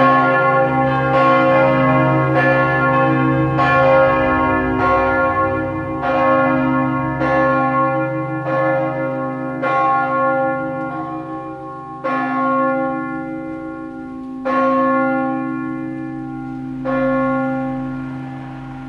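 Four Perner-cast church bells, tuned C, E-flat, G and B-flat, ringing together, with strikes about every second and a long hum between them. Near the end the strikes thin out to a few lone ones, each further apart and fading, as the ringing winds down.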